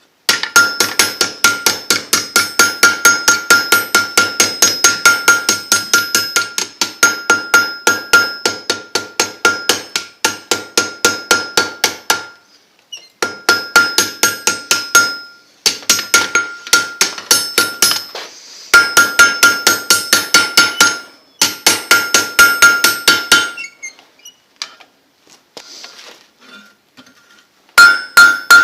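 Blacksmith's hammer striking hot steel on an anvil in rapid runs of blows, several a second, the anvil ringing at each strike. The runs pause briefly a few times, with a longer gap near the end before the hammering resumes.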